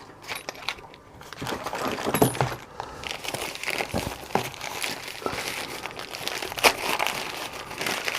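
Packaging crinkling and rustling as locks are unwrapped by hand, with a few sharper clicks mixed in.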